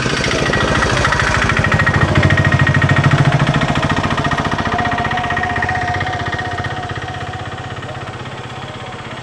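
Vehicle engine running with a rapid, even pulsing, growing louder over the first three seconds and then slowly fading.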